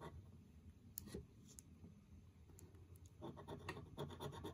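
Coin scraping the coating off a scratch-off lottery ticket. A few faint single scrapes come first, then a quick run of rapid back-and-forth strokes from about three seconds in.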